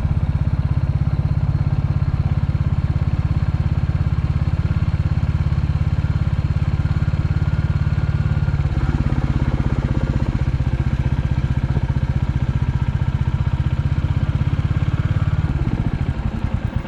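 Royal Enfield Classic 350's single-cylinder engine running under way, its exhaust beats close together and even. About nine seconds in the engine note shifts, and near the end it slows so the separate thumps can be picked out.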